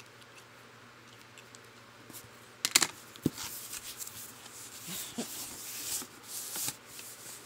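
Cardboard box packaging being torn open by hand: a sharp rip about two and a half seconds in, then paper and packing crinkling and rustling with a few light knocks.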